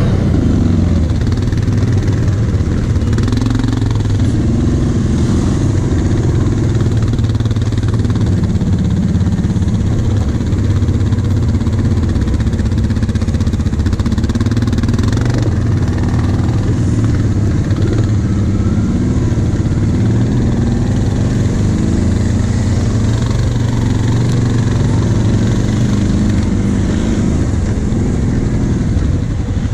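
Quad bike (ATV) engine running at low speed, its pitch rising and falling a little with the throttle, heard from on board the moving machine.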